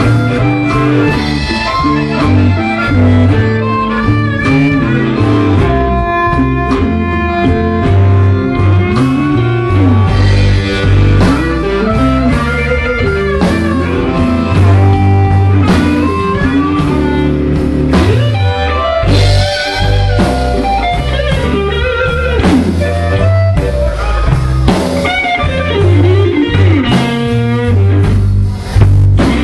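Live blues band playing an instrumental passage led by guitar over a steady low end, with notes bending up and down in pitch.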